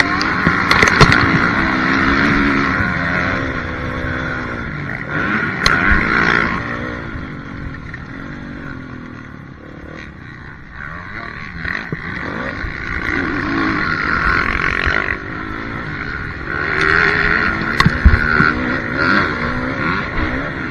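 Motocross bike engine heard from on board, revving up and falling back over and over as the rider accelerates and backs off around the track. A few sharp knocks come from the bike over rough ground.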